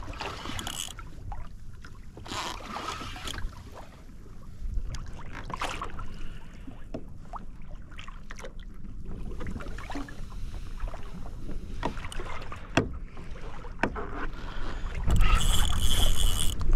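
Wind and water noise around a Hobie fishing kayak moving on open ocean, with scattered light knocks. About fifteen seconds in it grows louder, and a steady high whine comes in.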